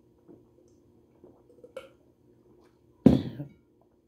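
Water being drunk from a glass mug: a few faint swallows, then about three seconds in one short loud sound as the drinking ends.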